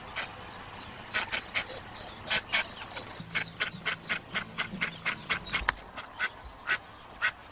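A quick run of short, sharp animal calls, about three or four a second, with a few thin high chirps among them.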